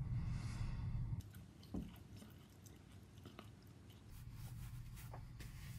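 A steady low hum for about the first second, then close-up chewing and mouth sounds with scattered sharp clicks.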